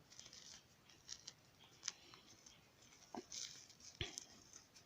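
Faint, scattered crackles and rustling scratches as small birds' feathers are singed over a small fire.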